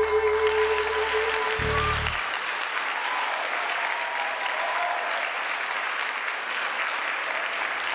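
Audience applauding as the song's final held chord rings out and stops about two seconds in; the applause carries on after the music ends.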